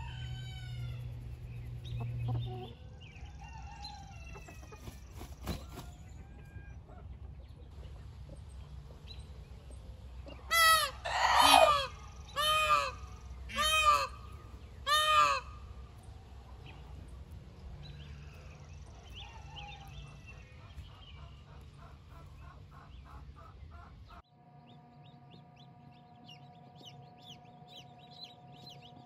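Backyard chickens clucking, with a run of five loud, short calls in the middle; near the end the sound drops to something quieter with short high chirps.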